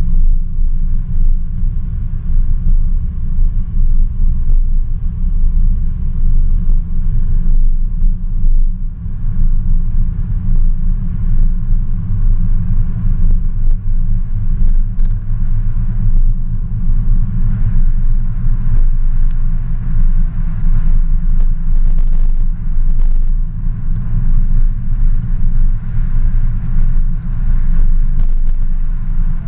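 Steady low rumble of a car driving at town speed, with engine and road noise heard close up from on board the car.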